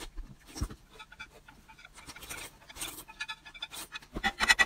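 Close-up eating sounds: chewing and mouth noises, with chopsticks clicking and scraping on a plate, and a quick run of louder clicks near the end.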